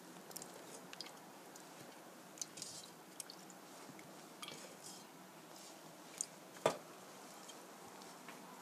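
Faint, scattered soft wet taps and squishes of rinsed, peeled potato pieces being set by hand into a non-stick frying pan, with one sharper click late on.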